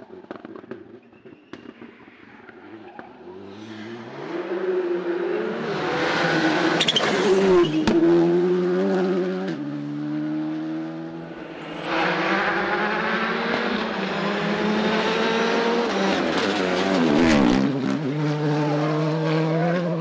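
Rally car engines revving hard one after another, the pitch climbing and dropping in steps through gear changes, with a few sharp cracks. It is quiet for the first few seconds, then loud as the cars come close.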